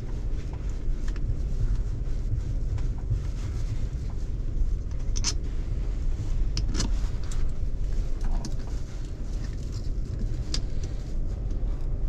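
Steady low rumble, with a few sharp clicks and taps of small parts and tools being worked into the tractor's joystick armrest console.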